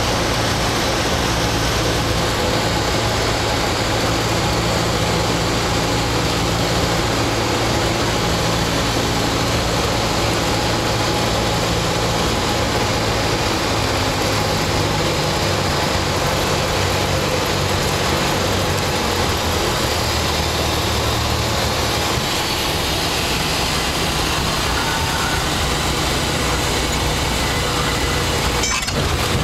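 Cabin noise of a single-engine high-wing light aircraft: the propeller engine running steadily under a rush of air, through the final approach and the landing roll. The engine's pitch shifts slightly around the middle, and a knock comes near the end.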